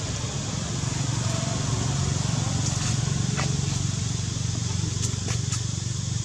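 Steady low background hum with a few faint clicks, the clearest three coming one after another about five seconds in.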